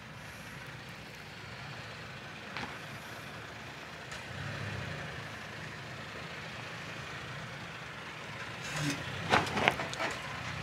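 Stock 2022 Toyota Tacoma TRD Off Road running at a low, steady crawl as it eases down a sandstone ledge. Near the end come a few sharp clicks and crunches from the tyres on the rock.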